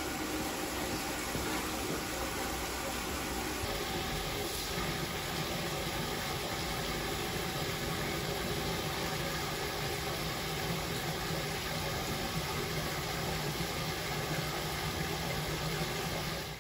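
Steady, even hiss of background noise at a constant level, with no distinct events.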